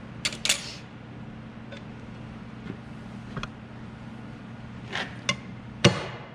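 Light metallic clicks and taps as lathe parts are handled, over a steady low hum. Just before the end, a strong, evenly paced drum beat of music starts.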